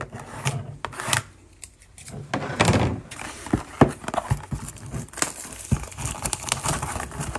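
Scissors snipping and hands tearing and crinkling the plastic shrink wrap off a cardboard trading-card box: irregular crackles and clicks, with the loudest tearing about two and a half seconds in.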